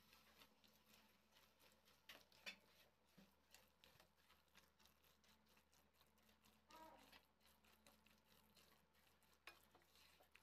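Very faint scraping and tapping of a spatula stirring scrambled egg bhurji around a nonstick kadai, with a few louder taps about two seconds in.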